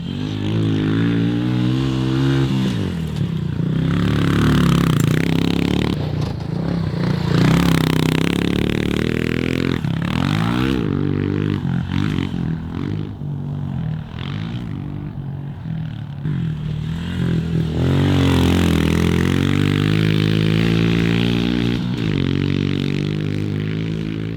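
Honda CRF110F pit bike's small air-cooled single-cylinder four-stroke engine being ridden, revving up and down as the throttle is worked, with the pitch climbing and dropping repeatedly and easing off for a few seconds around the middle before picking up again.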